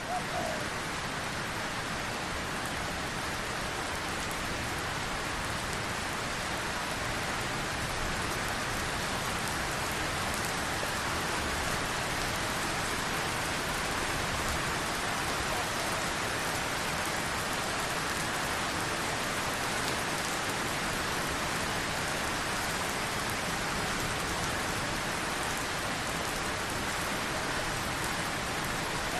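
Steady rain falling: an even, unbroken hiss of rainfall.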